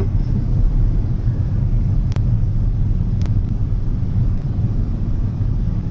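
A loud, steady low rumble, with two faint clicks about two and three seconds in.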